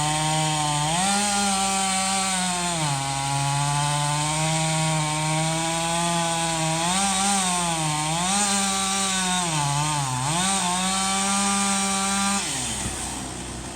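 Two-stroke chainsaw running at high revs, its pitch dipping and recovering several times as it bogs and frees in the cut. It winds down near the end.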